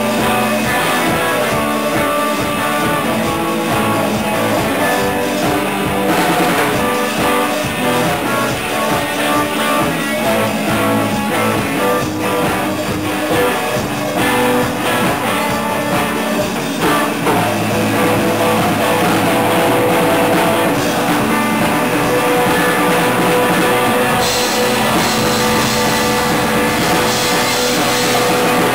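Rock band playing live: electric guitars over a drum kit, loud and continuous.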